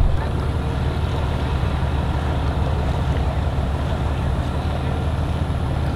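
Engines idling: a steady low rumble with no change in pitch.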